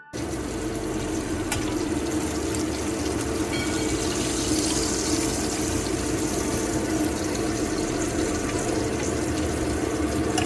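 Salmon fillets frying in melted butter in a stainless steel pan, a steady, loud sizzle.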